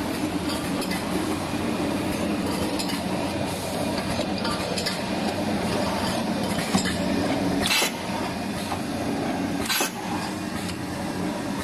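FLV30-2 automatic aluminium can seaming machine running with a steady mechanical hum, and cans clinking and clicking as they pass through. Two short hisses sound about two seconds apart near the end.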